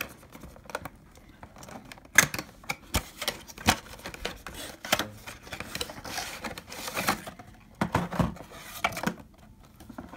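Cardboard box and clear plastic tray handled and opened: irregular sharp clicks and taps with brief scrapes and rustles of the packaging.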